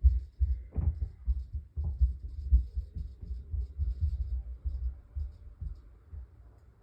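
Footsteps of children running on the floor above, heard through the ceiling as dull thuds, about three or four a second, that die away about six seconds in.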